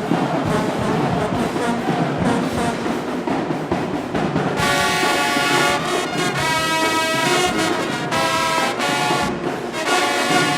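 Marching band brass section playing loud, held chords that break off and come back several times, entering about four and a half seconds in after a denser, noisier passage.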